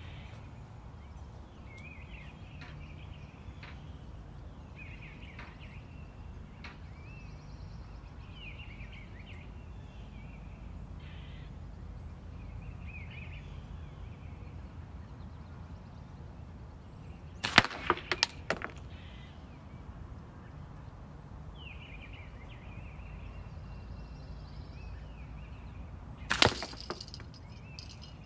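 3/8-inch steel slingshot balls striking the catch box twice: a sharp crack followed by a few quick rattling knocks about 17 seconds in, and another sharp crack near the end. Birds chirp in the background throughout.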